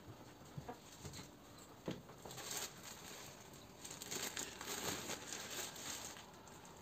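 Thin white wrapping material handled by hand, rustling and crinkling in uneven bouts.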